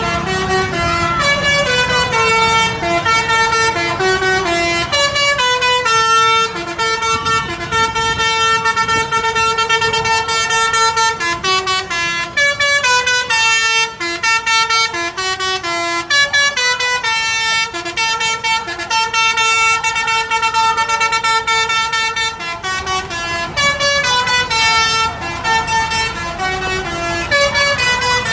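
A bus's telolet musical horn, the Basuri type, playing a long tune of stepping notes, several a second, with a few short breaks.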